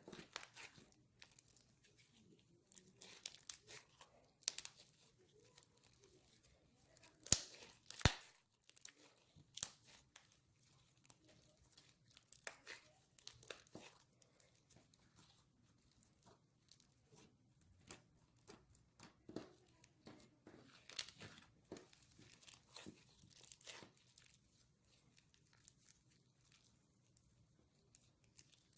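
Faint, irregular squishing and crackling of homemade confetti slime being kneaded and stretched by hand, with two sharper clicks about seven and eight seconds in.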